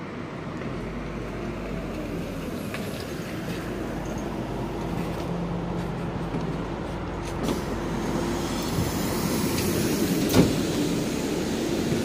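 City bus pulling in to the stop with its engine running, the noise growing louder as it comes close, and a single sharp knock about ten seconds in.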